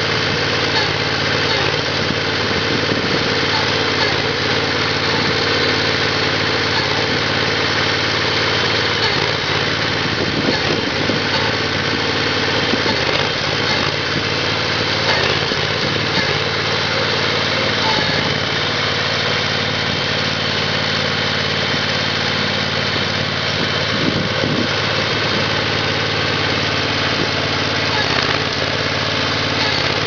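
Small engine of a remote-control mini loader running steadily and loudly, driving the hydraulics of an Augertorque 1200 post auger as it bores a hole into gravel ground.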